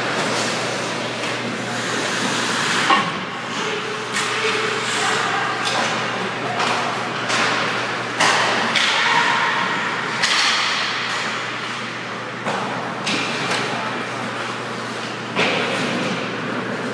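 Ice hockey play: skate blades scraping the ice and sticks and puck clacking, with several sharp knocks scattered through, the loudest about three seconds in.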